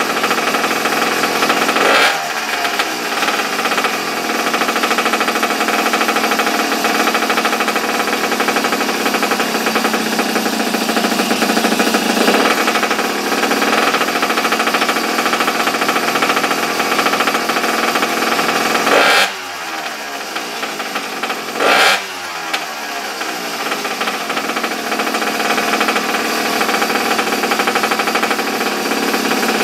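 Pocket bike's small air-cooled two-stroke engine running fast and rattly. Its revs drop sharply three times: about two seconds in, about two-thirds of the way through, and again shortly after.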